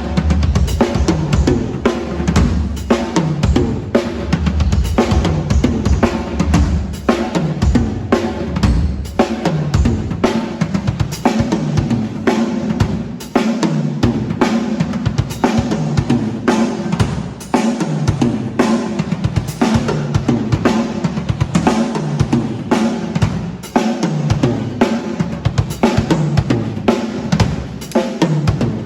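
Tama drum kit with Sabian cymbals played continuously for a sound check: steady kick drum and snare hits, rimshots and busy fills, with low booming drum tones that drop in pitch after many of the hits.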